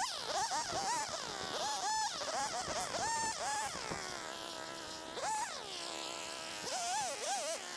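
Small chainsaw revved again and again while cutting up a fallen branch: each squeeze of the trigger sends a high whine climbing sharply, and it glides back down as the trigger is let off.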